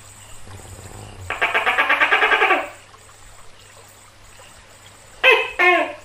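Tokay gecko calling: a fast rattling churr of about a second and a half, then near the end a single two-note "to-kay" call, each note falling in pitch.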